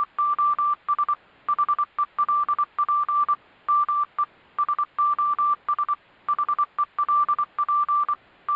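A single high electronic beep tone keyed on and off in short and long pulses, grouped with pauses like Morse code, over a light hiss.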